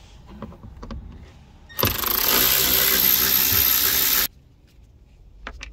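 Cordless power driver spinning a T20 Torx screw out of the dashboard trim, running steadily for about two and a half seconds and stopping abruptly. A few faint clicks come before it as the bit is set in the screw head.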